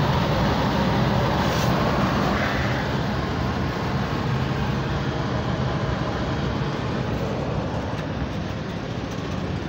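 A 2000 Chevy S-10 Blazer's heater blower fan runs steadily, pushing air out of the defroster vents along the base of the windshield, heard from inside the cab. The air rush eases slightly near the end.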